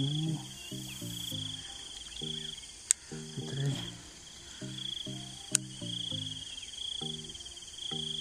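Background music playing a tune of short, stepping low notes over a steady, pulsing high trill of insects. Two sharp clicks a few seconds apart.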